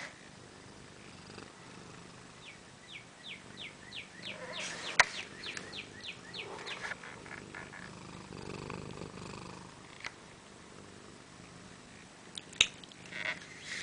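Domestic cat purring close up. A run of short high chirps comes a few seconds in, and two sharp knocks stand out, one in the middle and one near the end.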